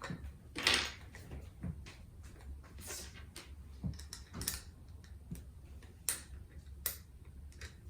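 Scattered light clicks and rustling of plastic headphone parts and wires being handled, with a short rustling burst about a second in, over a steady low hum.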